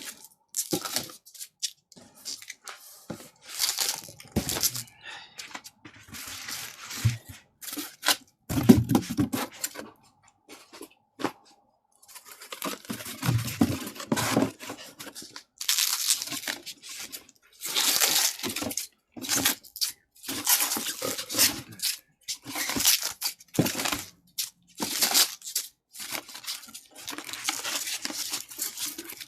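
Irregular rustling and tearing noises in short bursts with brief gaps, denser in the second half.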